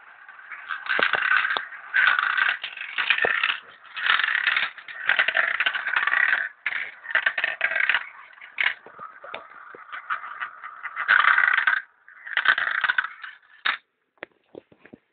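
Marbles rolling and clattering down a toy marble run, in uneven bursts of rolling rattle with many sharp clicks as they drop and hit the track. The rolling stops suddenly near the end, leaving a few scattered clicks.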